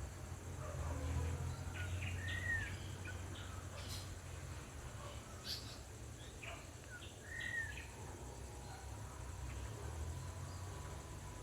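Outdoor wildlife ambience with short bird chirps: two clear arching chirps about two seconds and seven seconds in, and scattered faint clicks and tweets, over a steady low rumble.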